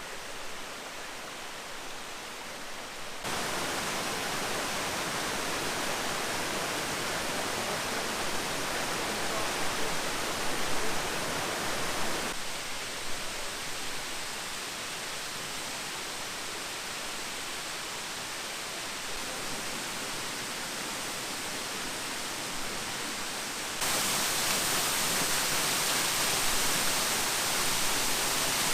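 Waterfalls: a steady rush of falling water, with no birdsong or voices over it. The level and tone shift suddenly three times, about three, twelve and twenty-four seconds in, each time becoming a louder or brighter rush of water.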